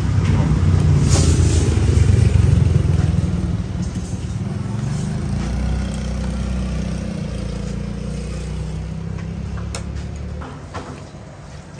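Road traffic passing by: a low engine rumble, loudest in the first few seconds, that fades away toward the end, with a few light clicks near the end.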